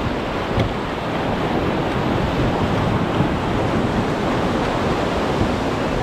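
Whitewater rapids rushing around an inflatable raft: a steady, loud wash of water noise.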